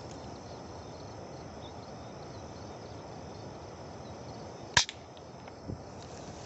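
A single sharp shot from a hunting air rifle, about three-quarters of the way through. A fainter thud follows about a second later, over a steady outdoor hiss.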